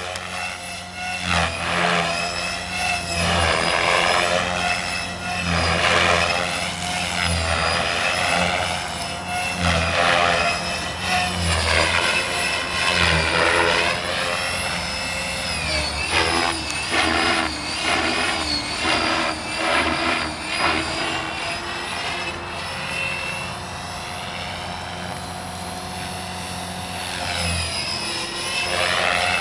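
Gaui X5 electric RC helicopter in flight. The whine of its brushless motor and rotor drive rises and falls over and over as it manoeuvres, over a steady low rotor throb.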